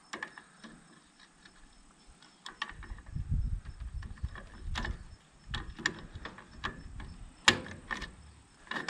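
Pliers working the small steel hook on the camper shell's rear-window support chain: scattered metallic clicks and ticks, the sharpest about seven and a half seconds in. A low rumble runs under the clicks from about three to five seconds in.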